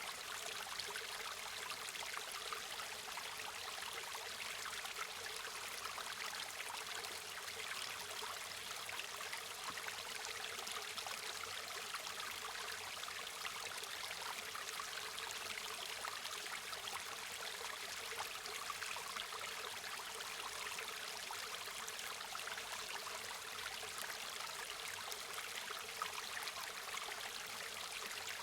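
Steady rushing and babbling of a river or stream, even and unbroken, with little low rumble.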